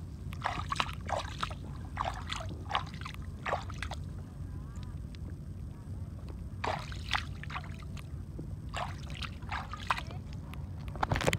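Sea water sloshing and splashing around a stand-up paddleboard, with many short splashes over a steady low rumble, and voices now and then.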